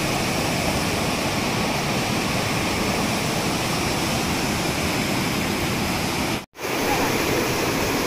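Steady rush of a shallow waterfall cascading over granite rock slabs, heard from right beside the water. The sound breaks off for a split second about six and a half seconds in, then carries on.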